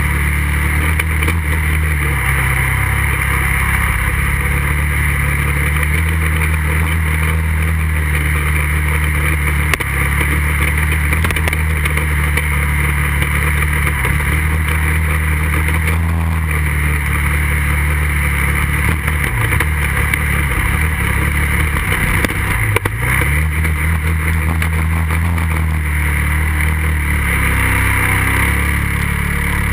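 Kawasaki 450's single-cylinder four-stroke engine running hard across sand, heard from a rear-mounted camera. The pitch steps between gears, then drops and climbs again about twenty seconds in.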